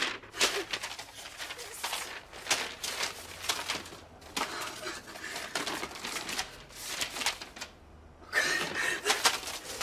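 Sheets of newspaper and paper rustling and crinkling as they are rummaged through and handled by hand, in an uneven run of short crackles.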